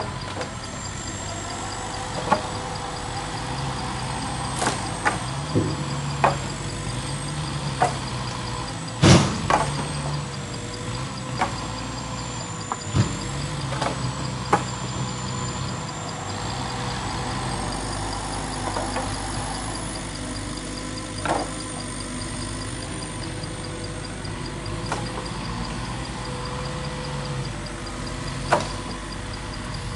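Yanmar ViO55 mini excavator's diesel engine running steadily, its note shifting as the hydraulics work the log grapple. Sharp wooden knocks come every few seconds as logs are gripped and set down, the loudest about nine seconds in.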